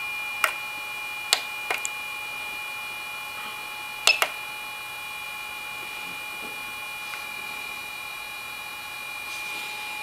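Buttons on a T-890 BGA rework station's control panel pressed several times: six short clicks in the first half, the last two about four seconds in, over a steady high-pitched whine.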